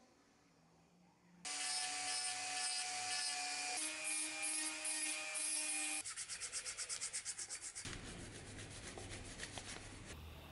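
Hand-rubbing the dagger's steel blade with abrasive paper. About a second and a half in, a loud rub starts with a steady ringing squeal whose pitch shifts once. It turns into quick back-and-forth strokes, about eight a second, then fades to a softer scratchy rub.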